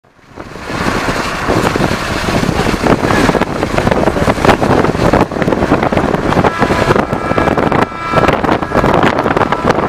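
Railway maintenance train running close by: a loud, continuous rumbling clatter full of short knocks, joined about six and a half seconds in by a few steady high tones.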